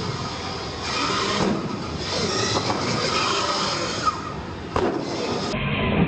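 Radio-controlled monster truck driving and jumping: its motor whine rises and falls with the throttle over a steady rattling rumble. A sharp landing impact comes a little before five seconds in.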